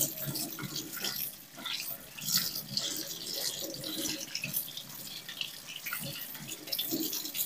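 Tap water running and splashing over sliced cucumber being rinsed in a sink to wash off the excess salt from dehydrating it.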